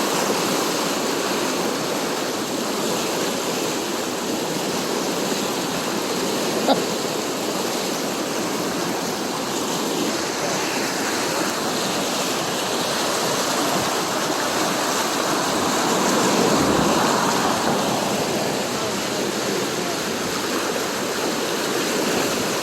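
Floodwater of a swollen creek rushing steadily under a bridge and through a clogged trash rack, with one short sharp click about seven seconds in.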